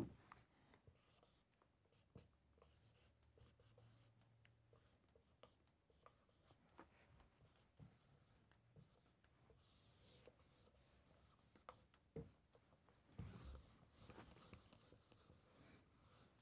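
Faint marker writing on a whiteboard: scattered light taps and short scratching strokes, with a longer run of scratching near the end.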